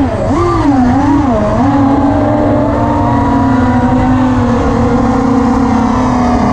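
Brushless motors of an Armattan Chameleon FPV quadcopter (2203, 2300 kV) whining. The pitch swoops up and down with the throttle for about a second and a half, then holds nearly steady.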